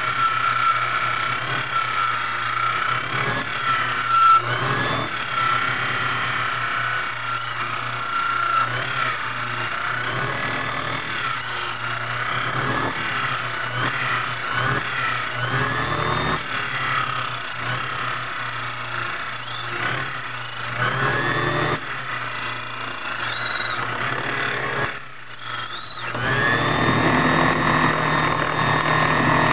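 Foley Belsaw Model 200 key-cutting machine running and its cutter cutting a Weiser WR5 key blank: a steady motor hum under a high tone that wavers as the key is traced along the guide. About 25 seconds in the sound dips briefly, then the machine runs on with a steadier tone.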